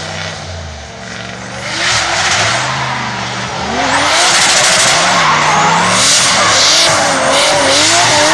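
Two drift cars, a BMW E46 and a Nissan 200SX, sliding in tandem: engines revving up and down as the drivers work the throttle, with tyres skidding. It gets louder at about two seconds and again at about four seconds as both cars are fully sideways and smoking.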